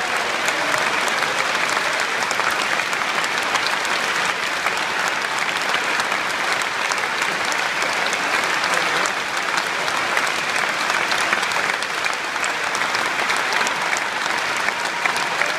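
A large concert-hall audience giving a standing ovation: dense, steady applause from many hands clapping at once.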